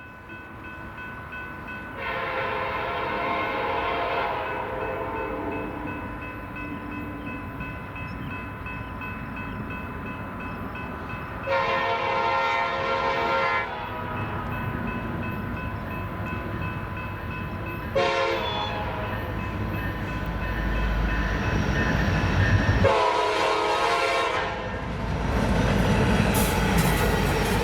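Diesel freight locomotive's multi-chime air horn sounding the grade-crossing signal: two long blasts, a short one, then a final long one, the standard warning for a crossing ahead. Under it the locomotive's engine rumble grows louder as the train approaches.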